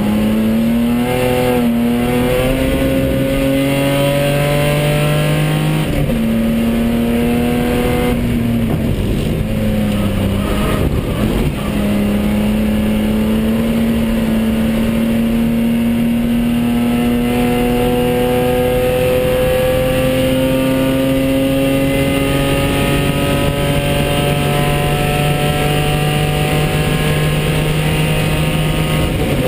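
BMW E30 325i's straight-six engine heard from inside the race car's cockpit, under load on track. The revs rise and dip several times in the first eleven seconds, then climb slowly and steadily for the rest.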